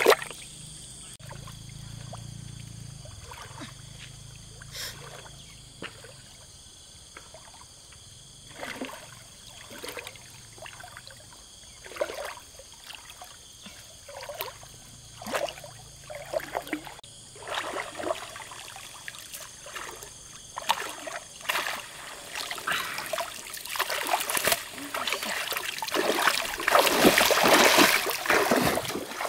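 Water splashing and trickling in separate strokes about every second and a half, growing busier into a long stretch of heavy splashing near the end.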